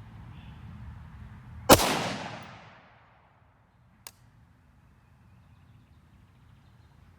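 A single gunshot from a 5.45×39 rifle firing a 55 gr hollow-point round, a sharp crack followed by about a second of echoing tail. A short, much quieter click comes about two seconds later.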